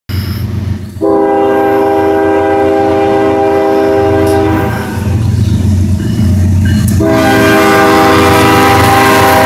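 Norfolk Southern diesel freight locomotive's air horn sounding a chord of several notes in two long blasts: the first about a second in, lasting about three and a half seconds, the second starting about seven seconds in and still held at the end. Under the horn runs the steady rumble of the approaching locomotives.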